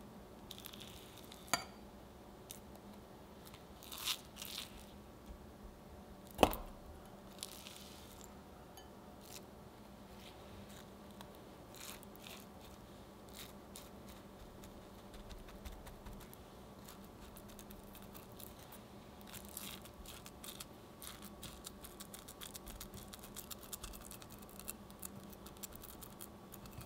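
Buttered, green-coloured digestive biscuit crumbs being spooned into stainless steel ring molds and pressed down with a silicone spatula: soft scrapes and a few taps, one sharp tap about six seconds in, then a run of fine crunchy crackling near the end as the crumbs are packed down.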